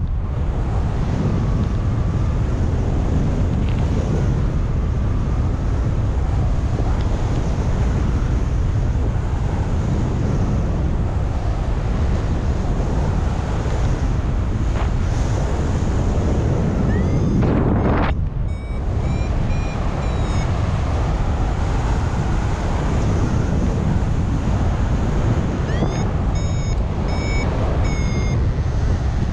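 Wind buffeting the microphone during paraglider flight, a steady loud rumble. Twice, about halfway through and near the end, a variometer gives a run of about four short high beeps, its climb tone signalling rising air.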